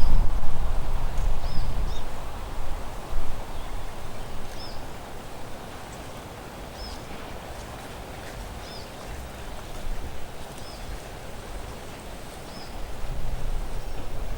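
Outdoor ambience: a low rumble that swells near the start and again near the end, with a steady hiss and a short high chirp repeating about every two seconds.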